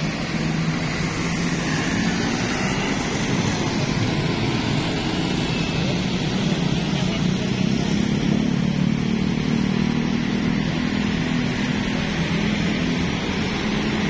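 Town street traffic: motorcycles and cars passing through a junction, with a steady low engine hum throughout.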